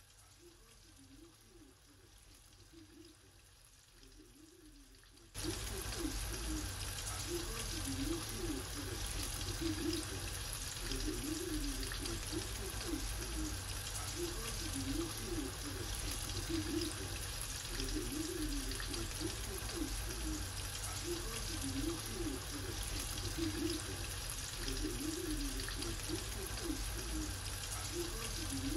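Batter-coated squid (calamari) pieces deep-frying in hot oil, a steady crackling sizzle. It is faint at first and turns much louder and fuller suddenly about five seconds in.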